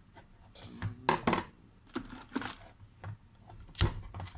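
Gold foil on a beer bottle's neck crinkling and tearing as a screwdriver tip scrapes and prods at it and at the metal cap, in a string of short sharp clicks and scrapes. The loudest is a single knock near the end.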